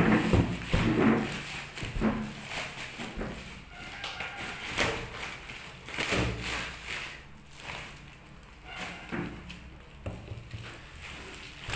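Plastic shipping bag rustling and crinkling as a cardboard box is worked out of it by hand, with knocks and thumps of the box, loudest in the first second.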